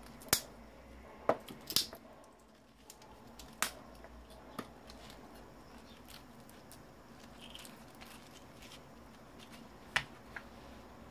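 Sharp, separate snaps and clicks of hand tools working copper wire loose from a CRT monitor's windings, about six of them at uneven intervals, the loudest in the first two seconds and one about ten seconds in.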